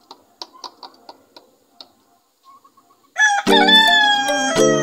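A rooster crowing: one long, loud call that comes in about three seconds in and falls in pitch toward its end, after a stretch of faint scattered clicks.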